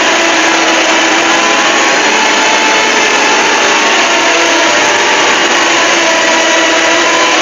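Loud, steady hiss-like noise from a fan-made mock emergency alert alarm, with faint held tones beneath it.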